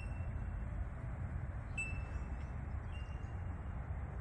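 Outdoor ambience: a steady low rumble, with three faint, high, held ringing notes.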